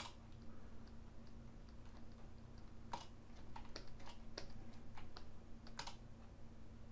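Faint, scattered clicks and taps from computer input devices, bunched together from about three to six seconds in, over a steady low electrical hum.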